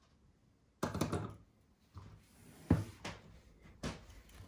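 Handling noise on a tabletop as reels of solder are picked up and moved: a rustle about a second in, then a few sharp knocks.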